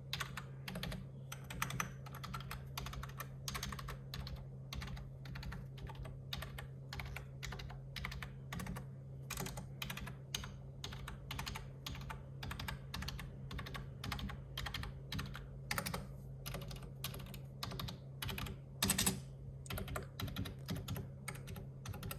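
Typing on a computer keyboard: a continuous stream of key clicks, about two or three a second, with a louder cluster of keystrokes about 19 seconds in.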